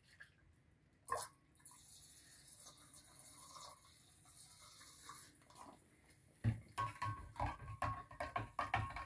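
A utensil stirring salt water in a large glass jar, knocking against the glass in a quick, uneven rhythm of about three strokes a second from about six seconds in, mixing in the soda solution just added to raise the pH. Before it there is a faint hiss.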